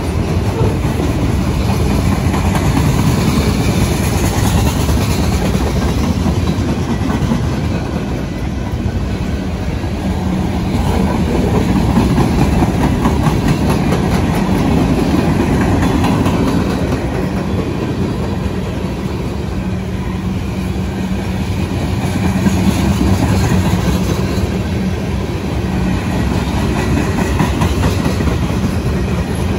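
Freight cars of a passing train rolling by at close range: a steady heavy rumble with a rapid, continuous clicking of steel wheels over the rail joints, swelling and easing slightly in loudness.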